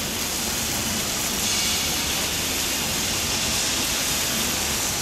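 High-pressure water jet spraying onto the steel honeycomb tubes and electrode frame of an electrostatic precipitator, a steady hiss of water.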